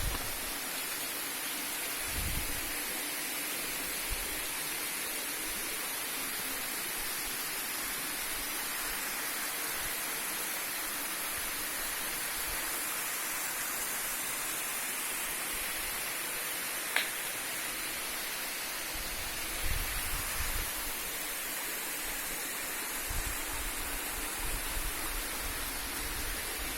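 Waterfall running: a steady, even rush of falling water. A few short low thumps and one sharp click sound over it.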